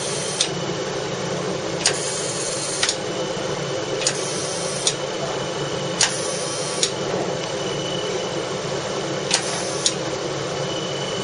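CO2 fractional laser machine running with a steady fan-like hum, with pairs of sharp clicks about a second apart and a brighter hiss between the clicks of each pair, four times over, as the laser fires.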